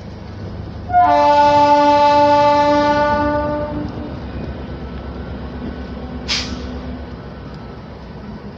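A train horn sounds one long, steady note starting about a second in, lasting roughly three seconds before fading, over the steady low rumble of the train pulling away. A brief sharp hiss comes about six seconds in.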